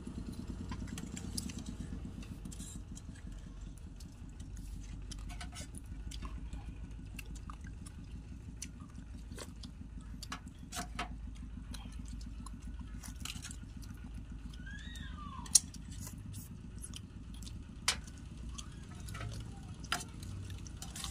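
Metal spoons clinking and scraping against a metal serving tray during a meal, with a few sharp clinks in the second half, the loudest about three quarters of the way in. Under it runs a steady low hum.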